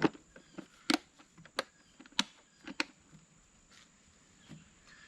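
Hand work on a chainsaw: a series of sharp clicks and knocks, about one every half second to second for the first three seconds, then a few softer ones, as parts and tools are handled.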